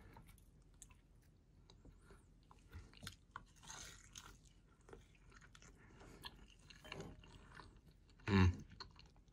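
A person chewing a bite of meatball: small, quiet wet smacks and clicks of the mouth. A brief louder sound comes about eight seconds in.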